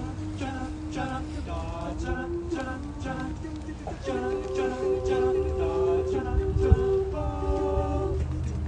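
Mixed-voice a cappella group singing in harmony, with no instruments. The voices build from lighter, shorter phrases into fuller held chords about halfway through.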